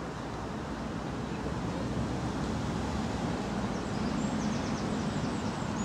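Steady outdoor background noise with wind rumble on the microphone, and a short run of faint high chirps about four seconds in.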